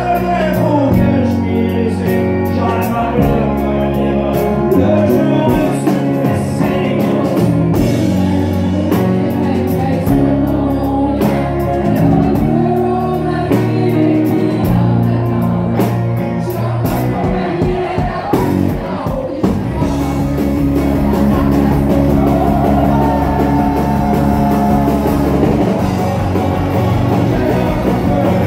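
Live Québécois folk-rock band playing, with a male lead singer and a female singer over accordion, electric guitar and drums.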